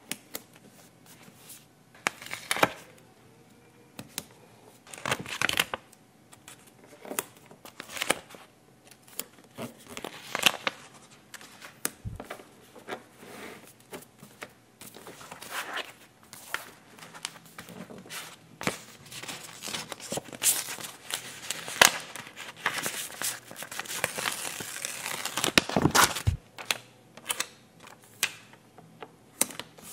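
Paper stickers being handled: rustling, crinkling and peeling as stickers are lifted from their sheets and pressed onto a notebook page, with scattered light taps. The rustling is thickest in a stretch about three-quarters of the way through.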